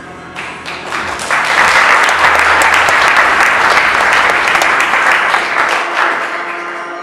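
Audience applause that swells about a second in and tapers off near the end, over background music.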